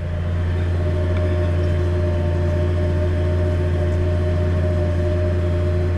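Massey Ferguson tractor's diesel engine running steadily under load while pulling an offset disc harrow through the soil. It is a low, even drone with steady higher tones above it.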